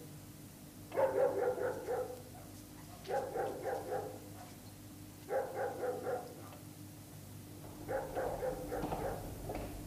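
Labored, wheezing breaths of a girl lying ill in bed, one about every two seconds. Each is a rasping, catching sound of about a second.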